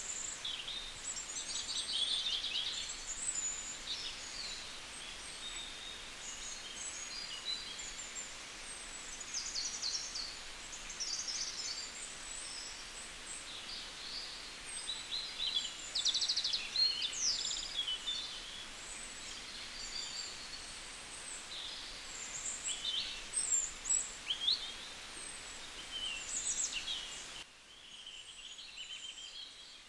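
Small birds chirping and twittering in many short, varied calls over a steady background hiss. Near the end the sound becomes quieter.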